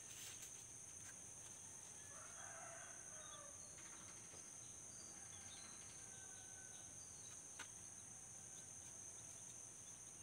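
Faint roosters crowing a few times, over a steady faint high hiss, with one small click about 7.5 seconds in.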